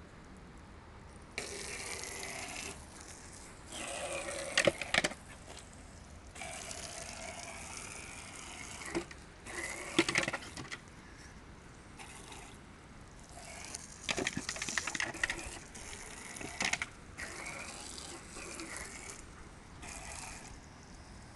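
Water jet from a hose spraying in repeated bursts of one to two seconds, with short gaps between, and a few sharp splashes.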